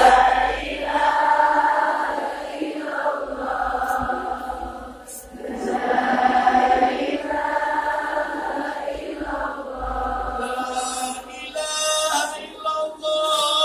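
A large congregation chanting together in an Islamic devotional chant, long drawn-out phrases with short breaks between them. A more ornamented line comes in near the end.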